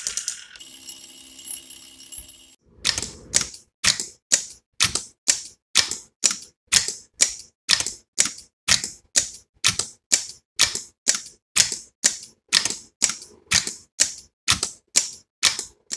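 A rotary telephone dial runs back with a fast run of clicks, followed by a faint hum for about two seconds. Then the electromechanical relays of a relay counter clack in a steady rhythm of about two clicks a second, driven by a relay clock-pulse generator as the counter steps through its counts.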